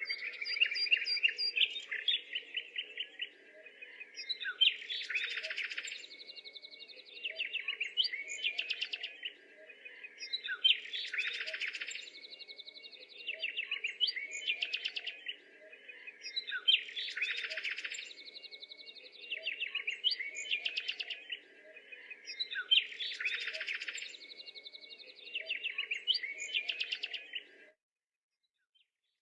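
A songbird singing a rapid, chattering, trilling song, the same phrase coming round about every six seconds, over a faint steady low hum. It cuts off suddenly near the end.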